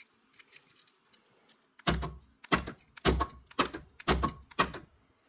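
Power door lock actuator cycling the door's lock mechanism, six sharp clunks about two a second after a short quiet start.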